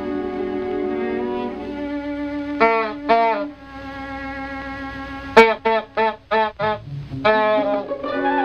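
Orchestral cartoon score led by bowed strings, playing slow held notes. It is broken by short pitched cries: two about three seconds in, and a quick run of five or six later.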